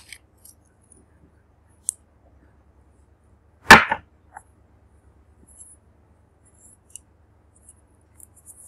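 Small nail polish bottles being handled: faint clicks and ticks, a sharper click about two seconds in, and one loud, short knock just under four seconds in.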